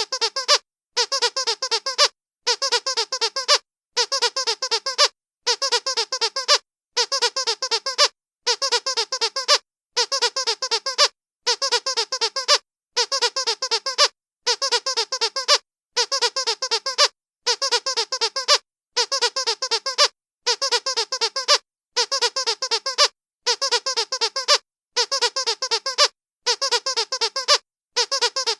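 Dog squeaky toy squeezed in quick bursts of several rapid squeaks, each burst lasting just over a second. The bursts repeat evenly about every second and a half with silent gaps between them, as a looped sound effect.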